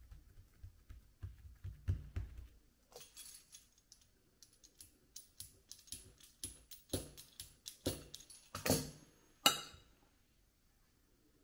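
Baking paper crinkling and rustling in irregular crisp crackles as pieces of poğaça dough are laid on a lined baking tray, with soft low thumps in the first couple of seconds; the loudest crackles come near the end.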